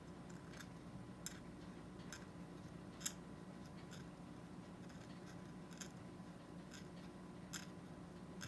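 Faint, irregular ticks and scrapes of a metal hand curette working against the plastic teeth of a dental typodont, about one a second with the sharpest near three seconds in, over a low steady hum.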